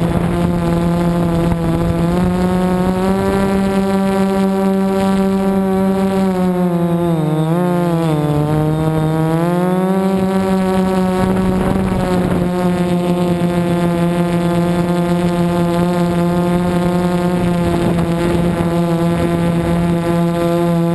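Multirotor drone's motors and propellers humming at a steady pitch. Around seven seconds in the pitch wobbles and dips lower for a couple of seconds, then climbs back to the steady hum.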